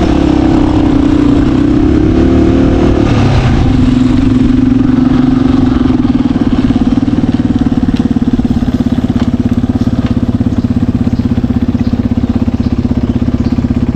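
An off-road vehicle's engine running under throttle, then easing off about three seconds in and settling to a steady, lower, pulsing run near idle.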